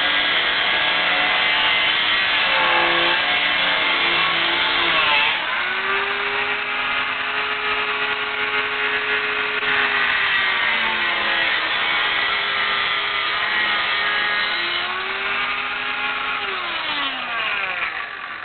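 A handheld electric cutting tool with an abrasive wheel grinding through a car's sheet-steel front end. The motor's whine drops in pitch and picks back up several times as the wheel is pressed into the cut, then falls away near the end.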